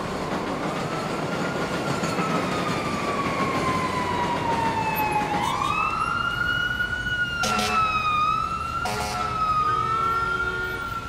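A siren wailing over a steady wash of street noise: its pitch falls slowly for about five seconds, then rises sharply and holds high. Two short blasts sound near the end.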